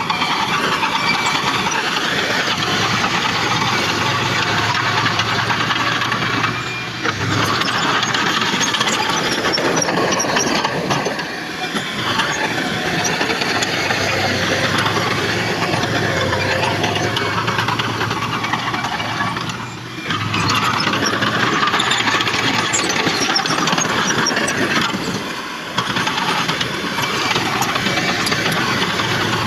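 Heavy diesel earthmoving machinery, a bulldozer and dump trucks, running and working steadily, with a few brief drops in level.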